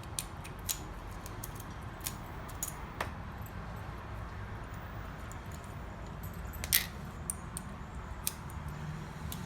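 Light, scattered metallic clicks and ticks of small lock pins and tools being handled while pinning a storefront mortise cylinder, with one sharper click about two-thirds of the way through.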